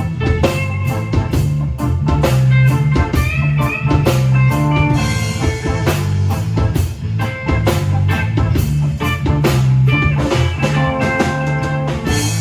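A band playing rock: guitar over a heavy bass line and a drum kit keeping a steady beat.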